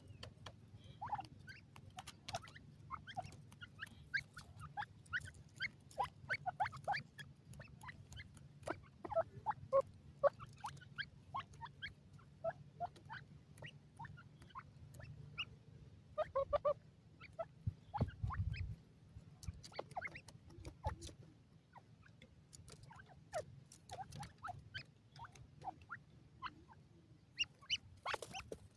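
Francolins giving soft, short clucking notes, scattered irregularly, mixed with quick ticks and clicks as they peck at the soil.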